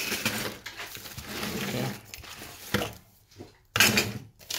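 Handling noise from tools and cables being pushed around on a wooden workbench: rustling, then two sharp knocks in the second half, the later one the loudest.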